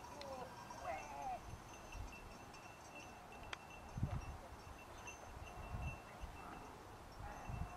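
Sheep bells tinkling faintly and irregularly from a flock, with low gusts of wind buffeting the microphone now and then.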